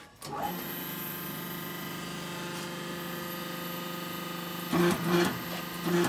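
Hydraulic power unit of a soil interlocking brick machine starting up at a control-panel button and running with a steady hum, working the machine's lower hydraulic cylinder. The sound swells louder briefly twice near the end.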